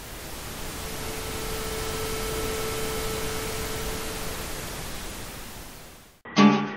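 A rushing hiss, like static, swells up and then fades away over about six seconds, with a faint held tone through the middle. Strummed acoustic guitar starts just before the end.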